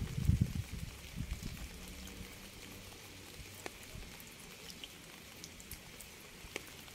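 Rain falling, a steady hiss with scattered individual drops ticking. A low rumble fades out in the first second or so.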